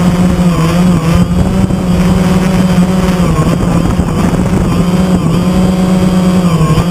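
DJI Phantom quadcopter's electric motors and propellers whining steadily, heard close up from the GoPro mounted on the drone. The pitch dips briefly a few times as the motor speeds change.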